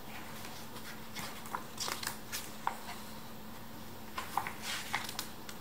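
Soft paper rustles and light taps as the pages of a picture book are handled and turned, a few short scattered sounds over a faint steady hum.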